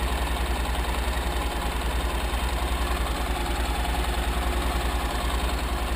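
Honda NC700X motorcycle's parallel-twin engine idling steadily, with an even low pulsing.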